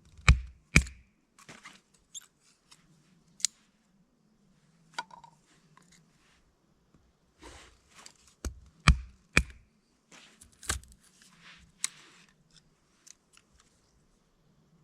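Irregular sharp knocks and cracks: two hard hits near the start and a quick run of three or four about halfway through, with small clicks and rustling between.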